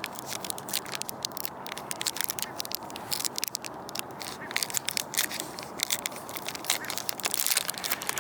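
Foil wrapper of a Pokémon Crimson Invasion booster pack crinkling as it is handled and torn open by hand: a dense, continuous run of sharp crackles.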